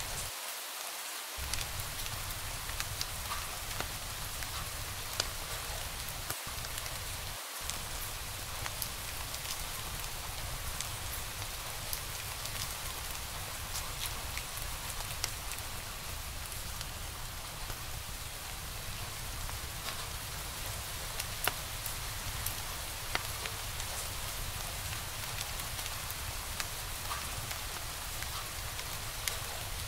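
Wood fire crackling in a fireplace: a steady hiss dotted with many small, irregular pops and snaps.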